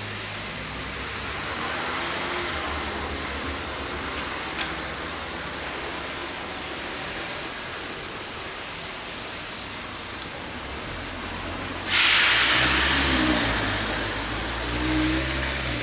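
Vehicle noise: a steady low hum and hiss. About twelve seconds in, a sudden loud rush of hiss begins and slowly fades, under a low rumble with a short whine that rises and falls.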